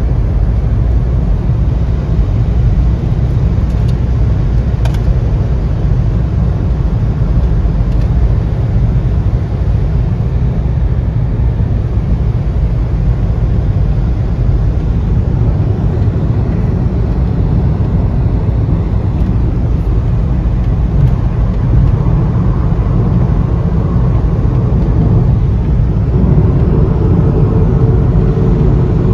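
Steady low rumble of tyre, engine and wind noise inside a car cruising at motorway speed, with one faint click about five seconds in. Near the end a steady hum joins the road noise.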